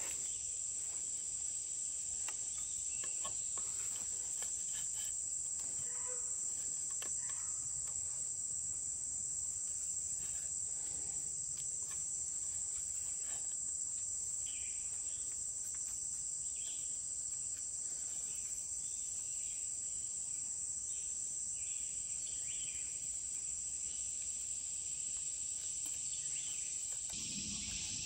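Steady high-pitched insect chorus, unbroken throughout, with faint scattered rustles and ticks beneath it.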